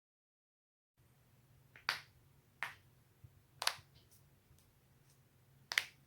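Joints being cracked: four sharp pops starting about a second in, the last the loudest, with a few fainter clicks between them.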